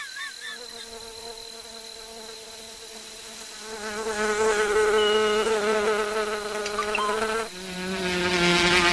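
Flying insect's wing buzz in an animated cartoon: a steady pitched drone that swells louder about four seconds in and shifts to a lower pitch near the end.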